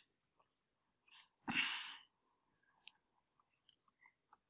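Mostly quiet, with a short breath into the microphone about one and a half seconds in, then a few faint, scattered computer-keyboard clicks as a URL is typed.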